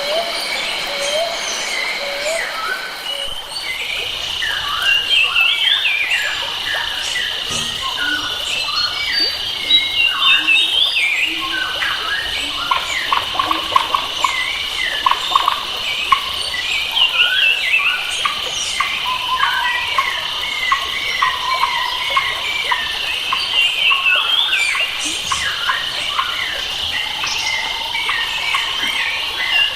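Forest birds chirping and singing in quick, overlapping phrases over a steady high insect drone.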